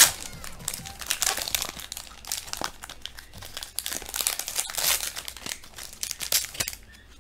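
Foil Pokémon booster-pack wrapper crinkling as it is opened and the cards are pulled out, in irregular crackles with a sharp snap at the very start.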